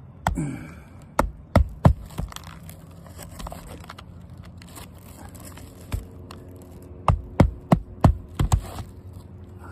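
Hammer driving nails with sharp, irregular blows: a group of five in the first couple of seconds, one near six seconds, then a quicker run of six. A faint steady hum sits underneath in the second half.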